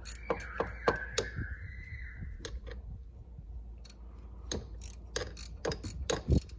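Hand ratchet clicking in short irregular strokes as it tightens a nut, in two spells: one in the first second and one near the end.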